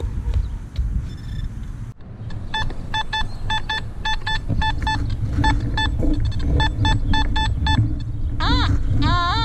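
Nokta Makro Simplex+ metal detector giving short, evenly repeated target beeps about twice a second as the coil sweeps over a target, over a low rumble; near the end the tone turns to a warble. The signal is the one the detector then reads as a solid 92, a clad quarter.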